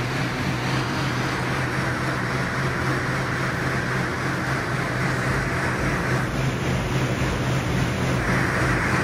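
Rogue Echo air bike's fan whooshing steadily as it is pedalled hard, with a constant low hum underneath.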